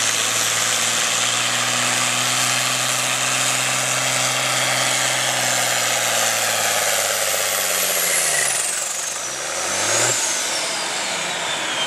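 A John Deere tractor's diesel engine runs at full throttle under heavy load while pulling a weight sled, with a steady high turbo whistle. About eight seconds in, the throttle comes off and the engine note falls away. There is a short rev near ten seconds, and then the whistle winds down as the pull ends.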